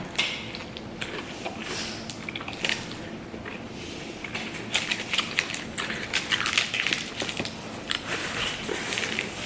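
Close-up eating sounds: biting into and chewing a burrito, with many small crunches and crackles that grow busiest about halfway through.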